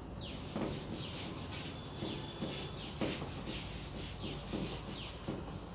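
Chalk scratching and tapping on a blackboard in a few short strokes as letters are written. Small birds chirp repeatedly in the background, each call a quick falling whistle.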